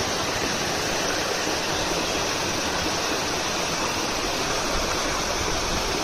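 Steady rush of water pouring over rocks in a small waterfall and shallow stream.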